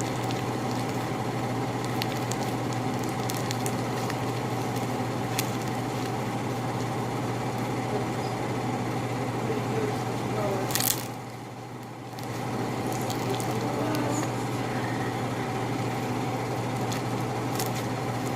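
Slime being squished and kneaded by hand, with small sticky clicks and squelches, over a steady low machine hum that dips briefly about eleven seconds in.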